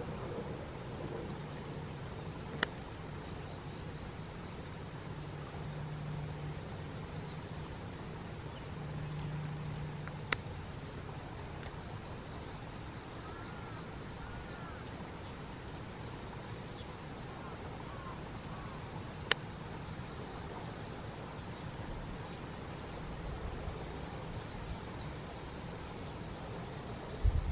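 Outdoor ambience: a steady low background hum with small birds giving short, high chirps, repeated several times through the middle, and three sharp clicks.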